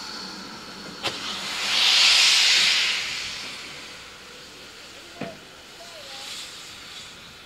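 Steam hissing from the cylinder drain cocks of GWR Manor-class locomotive No. 7828, swelling to a loud burst about two seconds in and fading away over the next couple of seconds. A sharp click comes just before the hiss and another a few seconds later.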